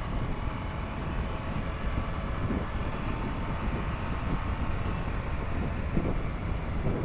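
Honda Foreman 520 ATV's single-cylinder engine running steadily while under way, with wind buffeting the microphone.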